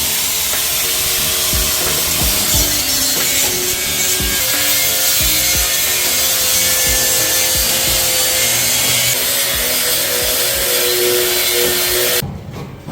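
Power tool cutting, running continuously with a steady hiss and whine, then stopping abruptly near the end.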